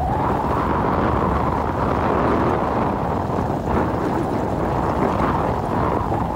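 Steady rush of wind on the microphone mixed with road rumble from a vehicle travelling along a gravel road.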